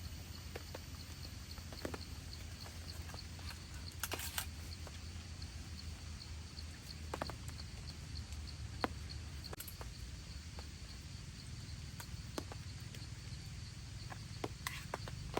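Steady rain falling, with irregular louder drops tapping every second or two.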